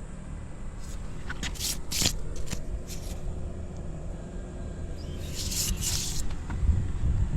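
Yamaha Renaissa's single-cylinder engine running through a Supertrapp exhaust, a steady low rumble with several short hissing bursts over it and a slight rise in level near the end. It runs with no abnormal noise.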